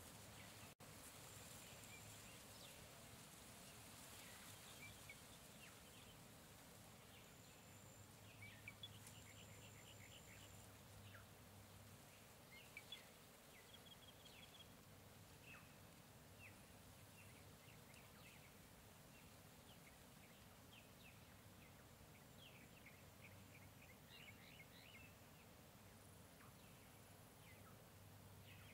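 Faint jungle ambience: a soft steady background hiss with scattered short bird chirps and calls throughout, and a thin high steady tone that comes and goes in the first ten seconds or so.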